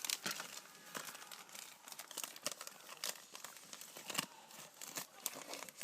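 Foil trading-card pack wrapper being torn open and crinkled by hand, a run of irregular sharp crackles.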